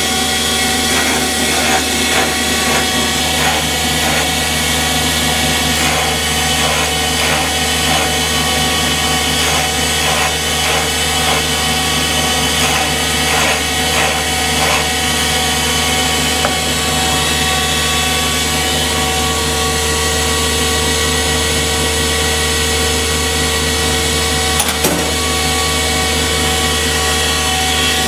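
Electric valve-refacing machine running steadily, its motor humming while the abrasive stone grinds a car engine valve, with light scraping contacts in the first half and a single click near the end.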